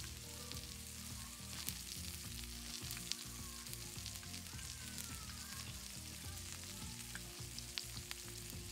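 Tomahawk steak and vegetables sizzling on a hot round griddle pan, a steady hiss of frying fat broken by scattered sharp pops and crackles.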